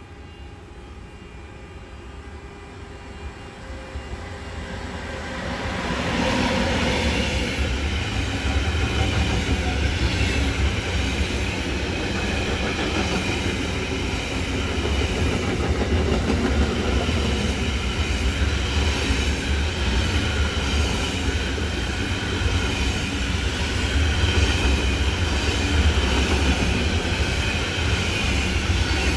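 DB Cargo Class 185 electric locomotive hauling a long intermodal freight train of container wagons past at speed. Faint at first and growing over the first six seconds as the train approaches, then a steady rumble and clatter of wagon wheels on the rails as the wagons roll by.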